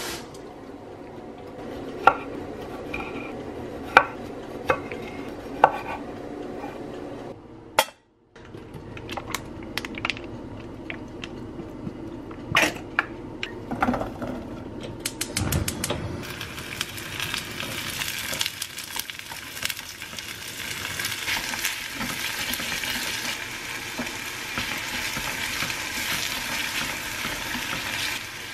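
A knife knocks a few times on a wooden cutting board as cherry tomatoes are sliced. After a pause, diced vegetables drop into hot oil in an enamel pot. From about halfway through there is a steady sizzle of frying, with chopsticks clinking against the pot as they stir.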